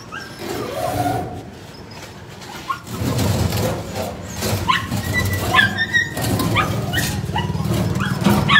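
Caged rescue dogs whining and yipping. A few calls come in the first seconds, then from about three seconds in many short, high, rising calls follow one after another over a steady low hum.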